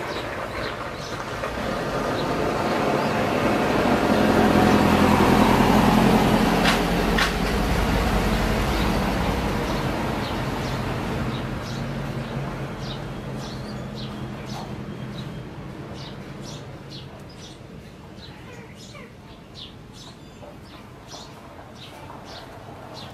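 A motor vehicle passing by: its engine grows louder to a peak about five seconds in, then slowly fades away. In the second half, short high bird chirps repeat.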